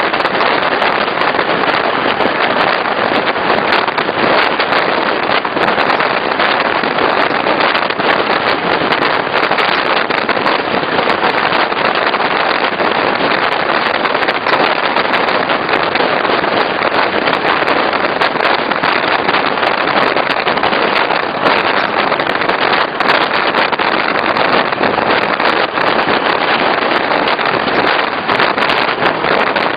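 Regional passenger train running steadily, a constant loud rushing noise of wheels on rails and air, with no change in pace.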